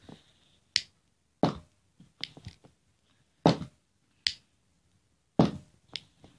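A series of sharp clicks and knocks, roughly one a second, from a lighter being clicked and handled right at the microphone, with near silence between them.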